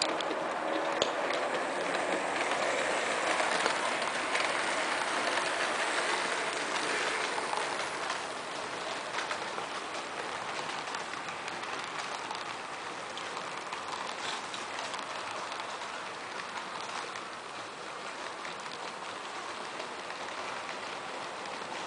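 Frateschi HO-scale model trains running on layout track: a steady motor whir with small clicks of wheels over the rail joints. It is louder for the first several seconds as a train passes, then settles to a quieter steady run.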